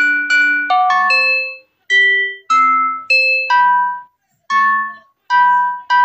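A mock emergency-alert tone played as a melody of struck, chime-like mallet notes, each ringing and fading, about two notes a second with a few short silent gaps partway through.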